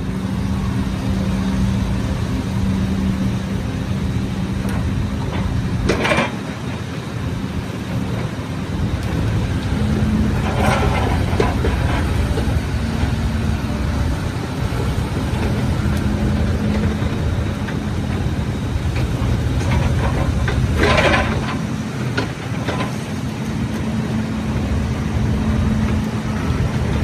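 Cat 306CR mini excavator's diesel engine running steadily, its pitch stepping up a little partway through, with three short, louder noises from the machine along the way.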